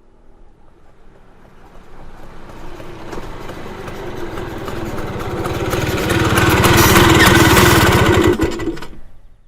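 Scooter engine approaching with a rapid, even firing beat, growing steadily louder, then cutting off abruptly near the end as the engine is switched off.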